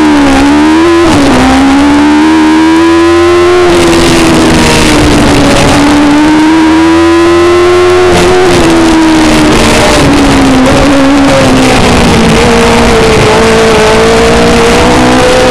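Single-seater racing car engine running hard at high revs, heard loud from an onboard camera on the car. The engine note dips and climbs again near the start and about a second in, rises slowly for a few seconds, falls around eight seconds in, then holds a steadier note.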